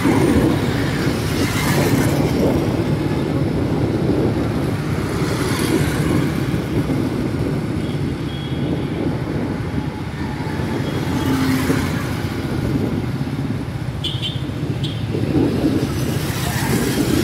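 Steady road traffic: motorcycle and car engines with tyre noise on the road, and several vehicles swelling louder as they pass.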